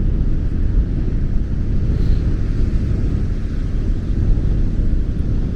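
Strong wind buffeting the built-in microphone of a DJI Osmo Pocket 2, a loud, steady, flickering low rumble.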